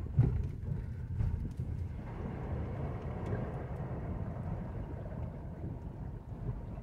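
A Nissan Leaf electric car wading slowly through a flooded ford, heard from inside the cabin: a steady low rumble of the tyres in the water, with a rushing wash of water against the car that fills out about two seconds in. There is no engine note.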